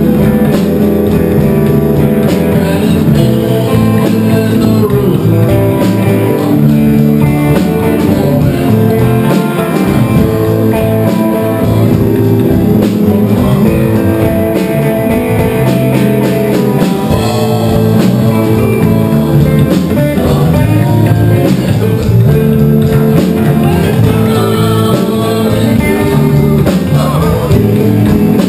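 A small rock band playing live on electric guitars and drum kit, with a steady beat throughout.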